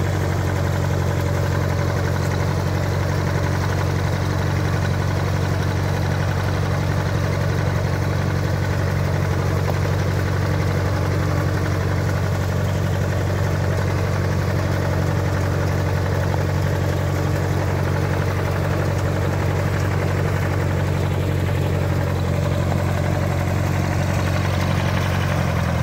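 Allis-Chalmers G tractor's small four-cylinder gasoline engine running with a steady, even hum while the tractor drives slowly.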